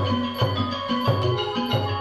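Thai piphat ensemble music for a khon dance: xylophones and gong circles playing a busy melody over a steady beat of low drum strokes, with small cymbal ticks.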